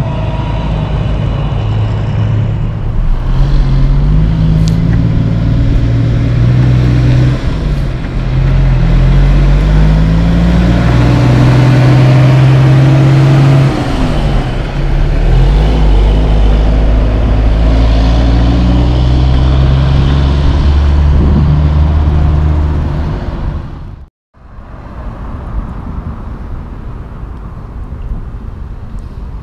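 Heavy-duty wrecker's diesel engine pulling a towed truck, its pitch climbing and then dropping several times as it works up through the gears. Near the end the sound cuts off abruptly and a quieter steady rumble follows.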